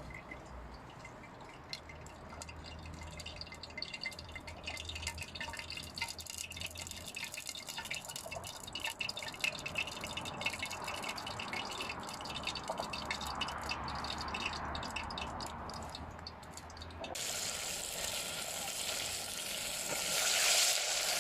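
Cooking oil heating in a pan over a fire, crackling and spitting with fine pops that grow denser. About seventeen seconds in, it changes suddenly to a steady, louder sizzle as the tofu goes into the hot oil and starts frying.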